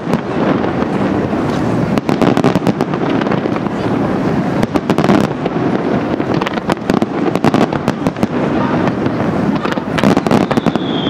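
Aerial fireworks display: a dense, continuous crackle and rumble of shell bursts and launches with many sharp cracks. Near the end a whistle starts and slides down in pitch.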